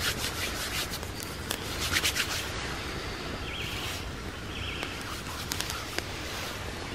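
Hands rubbing together, a run of quick dry brushing strokes, with a few sharp crackles from a small wood fire.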